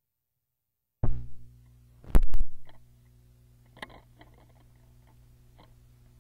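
Vintage Panasonic record player coming on with a steady low mains hum and a knock about a second in, then a louder thump a second later as the stylus drops onto a 45 rpm vinyl single, followed by scattered clicks and pops of surface noise in the lead-in groove before the music starts.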